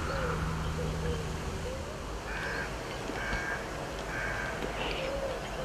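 A crow cawing three times, about a second apart, with other birds calling faintly.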